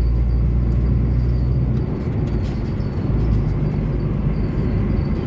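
Ford Verona's AP four-cylinder engine and road noise heard from inside the cabin while driving. The steady engine hum drops off about two seconds in, leaving a lower rumble.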